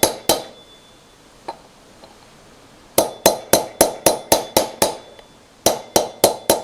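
Hammer tapping a socket used as a drift to drive a new front wheel bearing into a quad bike's hub: quick runs of light, ringing metal taps about four a second, with pauses between the runs. The bearing is going down but has not yet seated at the bottom of its bore.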